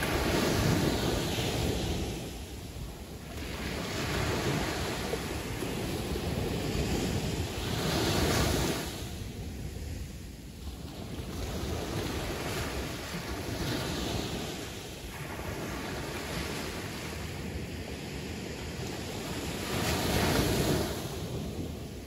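Caribbean Sea waves breaking and washing back. The rush swells and fades every few seconds, with the biggest surges about a second in, near the middle and near the end.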